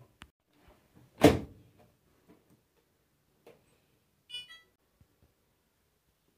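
An Electrolux front-load washing machine's door shut with a single thump, then about three seconds later a short run of electronic beeps from its control panel as the machine is switched on and a cycle is set.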